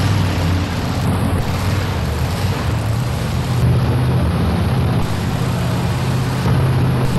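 Modified two-wheel-drive pulling truck's engine running at low revs, a steady rumble, as the truck rolls slowly into position before its pull.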